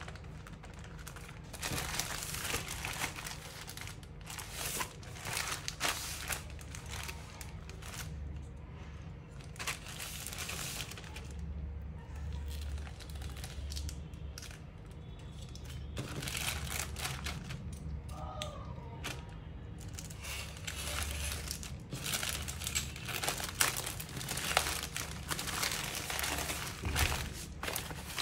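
Crinkling and tearing of plastic, with irregular small clicks and scrapes from close-up handling.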